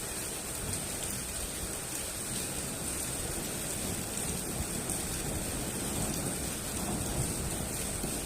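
Steady rain falling, an even wash of noise with a low rumble underneath.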